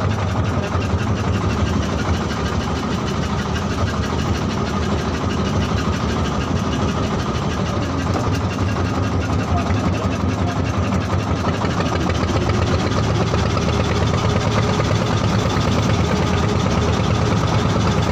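Small wooden fishing boat's inboard engine running steadily with a low, continuous hum; it gets slightly louder in the last third.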